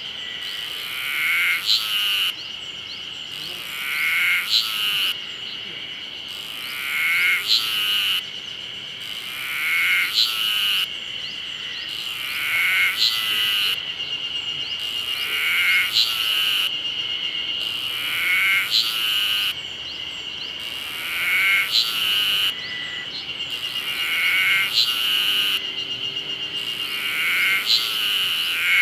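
Ezo harusemi cicadas (Terpnosia nigricosta) singing: a steady high buzzing chorus, with one insect's call phrase repeating about every three seconds, each swelling louder and then breaking off.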